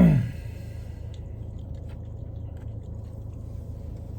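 Quiet chewing of food, faint small wet mouth clicks every so often, over a steady low hum. A short voiced sound with falling pitch opens it.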